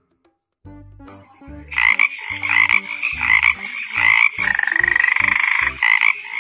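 Frog croaking in a run of loud calls and rapid pulsing trills, starting a couple of seconds in, over a children's tune with a low, repeating bass line.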